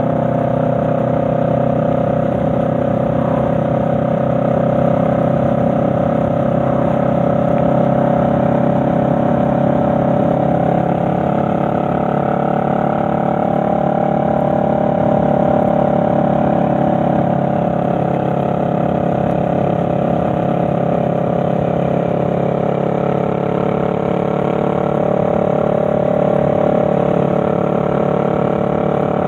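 Honda Rebel 500's 471 cc parallel-twin engine running steadily at road speed. Its pitch climbs gently about halfway through, then eases back.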